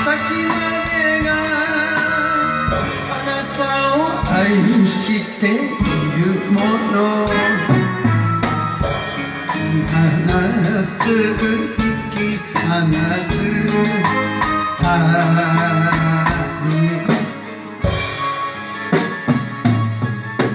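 Man singing an enka song to a karaoke backing track while playing along on a drum kit, drum strokes and cymbal over the sung melody.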